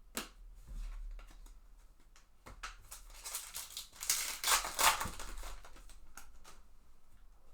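A foil trading-card pack wrapper being torn open and cards handled: scattered clicks and a crackly crinkling stretch in the middle.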